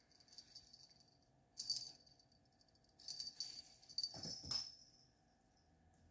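A small rattling cat toy jingling in several short bursts as a kitten bats it across a hard floor, with a thump about four seconds in.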